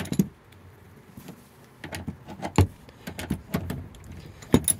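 Socket wrench with an extension turning the seatbelt anchor bolt as it is backed out: a quiet start, then irregular light metal clicks and knocks from about two seconds in.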